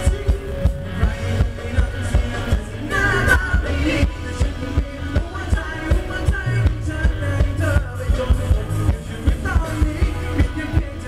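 Live band playing Thai ramwong dance music through PA speakers, with a steady, bass-heavy beat and singing over it.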